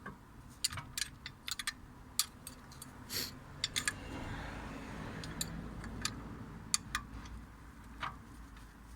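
Scattered light metallic clicks and clinks of two 17 mm spanners working a bolt and nut, turned to wind the brake caliper piston back, with a rougher scraping stretch about halfway through.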